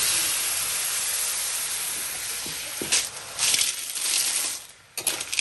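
Frying sizzle in a steel wok as coconut milk goes onto the hot spice paste. About three seconds in, snail shells clatter and clink into the wok in several rattling bursts, with a few more just before the end.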